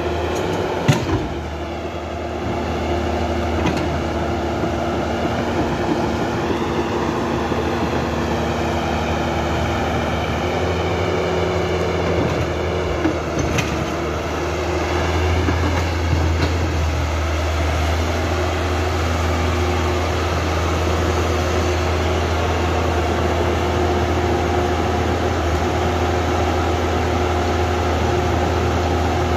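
Electric motors and gearing of a Huina remote-control toy excavator whining steadily as its boom, arm and cab move, the whine slowly rising and falling in pitch over a low hum, with a sharp click about a second in.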